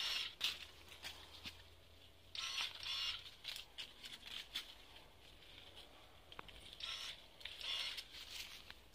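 Telescopic pole pruner working among hazelnut branches to top the shoots: several bursts of rustling leaves and twigs, near the start, around the middle of the first half and again near the end, with a few sharp clicks from the cutting head.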